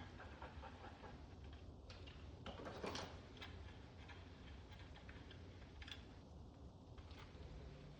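Faint clicks and light knocks of small fixture hardware being handled while a wall sconce is fitted to its mounting bracket, with one brief louder noise about three seconds in, over a low steady hum.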